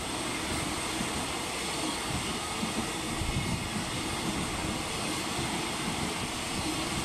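Freight train of container flat wagons running past at speed: a steady rumble of wheels on rail with irregular low knocks from the wheels.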